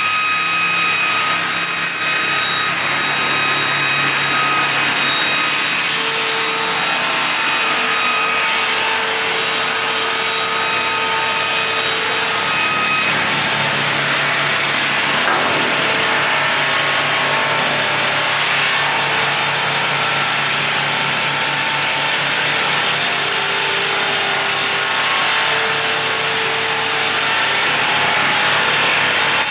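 SBGP-700 multi-blade circular sawing machine running with steady tones. About six seconds in, the saw blades begin cutting wood, adding a loud, dense sawing noise that carries on.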